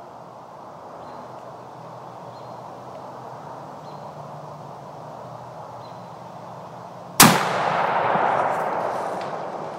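A single .270 hunting rifle shot about seven seconds in, a sharp crack whose report rolls and echoes away over about two seconds; before it only a faint steady hiss. It is the shot that drops a doe.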